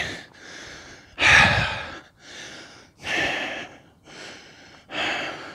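A man breathing hard and audibly, out of breath after running: three loud breaths spaced a little under two seconds apart, with softer breaths between them.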